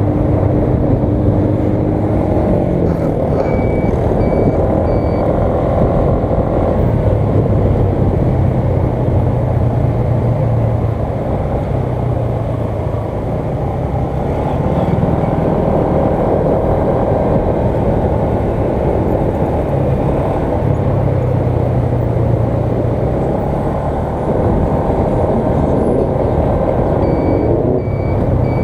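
Motorcycle engine running while riding, with road and wind noise, the engine note rising and falling with speed. A short electronic beep repeats about twice a second for a couple of seconds near the start and again near the end.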